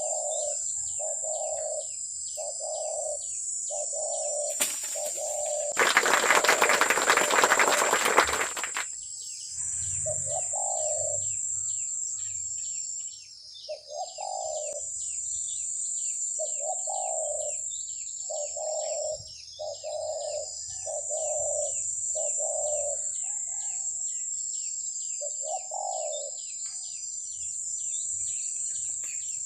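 A bird gives a regular series of low calls, about one and a half a second, pausing now and then. About five seconds in, a loud burst of wing flapping lasts about three seconds. Under it all runs a steady high insect drone with rapid insect ticking.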